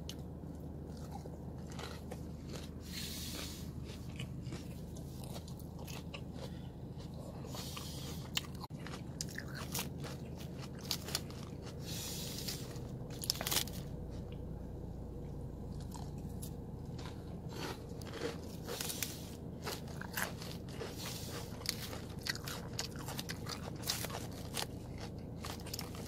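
Someone chewing and crunching food close to the microphone: irregular sharp crunches and mouth clicks, with a few longer crackly crunches.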